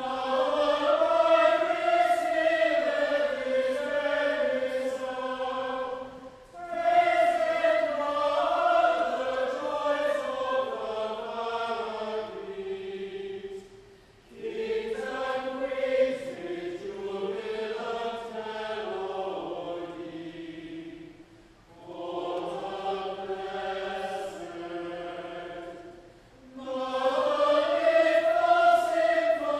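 Unaccompanied plainchant sung by a choir of voices, in phrases of about five to seven seconds separated by short silent breaks.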